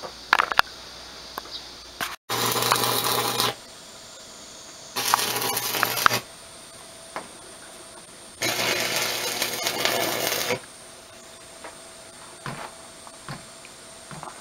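Electric arc welding on steel rebar: three spells of welding, about one second, one second and two seconds long, each with a steady low hum under it. Small clicks and taps come between the spells.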